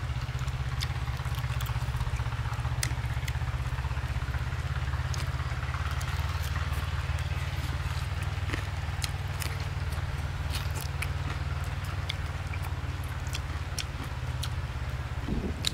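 Steady low rumble with scattered faint clicks and crunches of people eating crispy barbecued duck.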